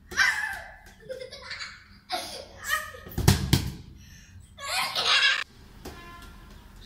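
Bursts of laughter, a child's among them, during play with a ball. There are two sharp thumps about three seconds in.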